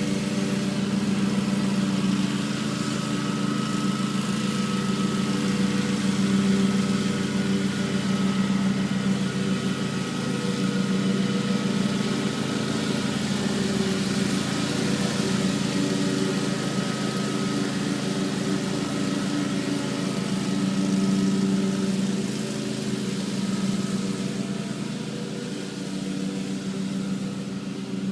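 Lawn mower engine running steadily, an even drone that holds the same pitch throughout.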